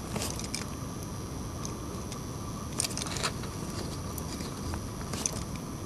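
A few short clicks and crackles from soldering wires onto a phone charger's circuit board, with handling of the board, over a steady background hiss and hum. The clicks come in three small clusters, about half a second in, about three seconds in and about five seconds in.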